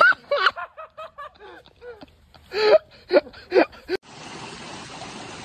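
A person's wordless vocal sounds, a quick run of short syllables, then a sudden change about four seconds in to a steady hiss.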